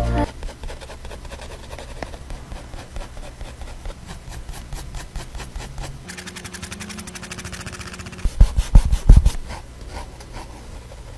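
Mechanical pencil scratching on paper in rapid short hatching strokes. About eight seconds in, a few heavy low thumps are the loudest sounds, then the scratching goes on more quietly.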